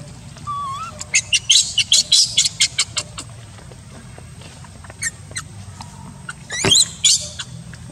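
Newborn baby macaque squealing in distress while an adult macaque holds it pinned down. About a second in comes a quick run of shrill squeaks, then a couple more, and near the end one long, loud scream that sweeps down in pitch.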